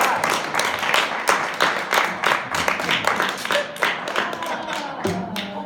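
Audience applause, many hands clapping, gradually dying down.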